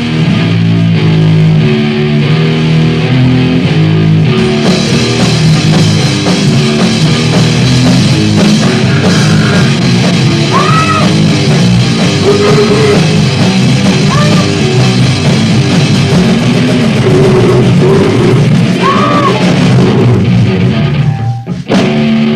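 Amateur noise-punk band playing loud and dense on electric guitar and drum kit, with a few short wailing pitch glides over the top. It stops abruptly at the very end.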